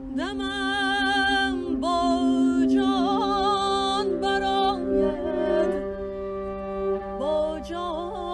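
A woman singing a slow Persian classical melody in short, ornamented phrases with wide vibrato, over held drone notes from a bowed viola d'amore and an end-blown flute.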